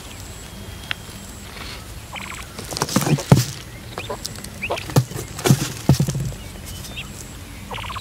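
Quail pecking and scuffling at scattered grain on dirt and around a plastic basket: irregular quick taps and scrapes, bunched together in the middle seconds.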